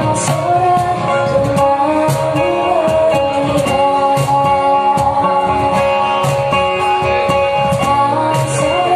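Live acoustic music: a woman singing over strummed acoustic guitars, with a cajón tapping a steady beat.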